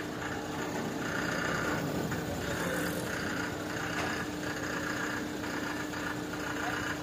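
Mobile crane's diesel engine running steadily while it hoists a heavy machine on its hook, a constant hum with a higher tone that swells and fades about once a second.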